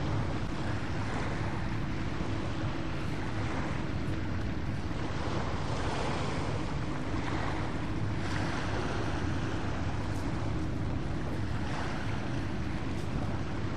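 Steady outdoor wind noise on the microphone and water washing at the shoreline, under a low, steady drone of passing motor-boat engines.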